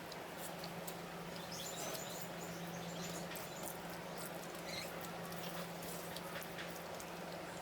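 Close-up eating sounds of rice and fish curry: chewing and mouth smacks with many small wet clicks, over a steady low hum.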